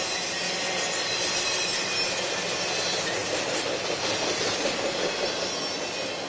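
Freight train cars rolling past: the tail of an intermodal train of trailers on flatcars on the near track and loaded coal hoppers crossing the overpass above. It is a steady rumble and clatter of steel wheels on rail, with thin squealing tones.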